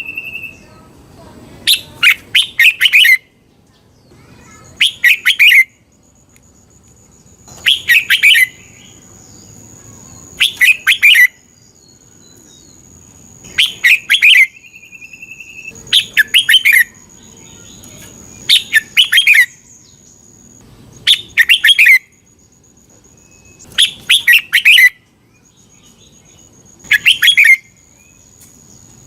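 Red-whiskered bulbul singing: short, loud phrases of several quick notes, repeated about every two to three seconds. A faint steady high tone runs behind most of the phrases.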